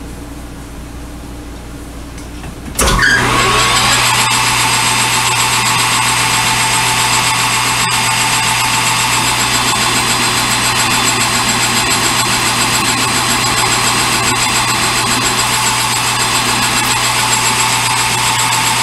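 Metal lathe switched on about three seconds in, spinning up quickly and then running steadily at speed.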